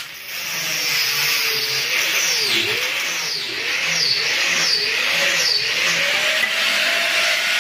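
Electric drill boring into stone: a steady motor whine that dips in pitch about six times as the bit bogs under load, then picks up and holds.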